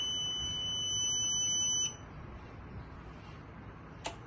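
SPF5000ES solar inverter's built-in buzzer sounding one steady, high-pitched beep that cuts off about two seconds in. A single sharp click comes near the end.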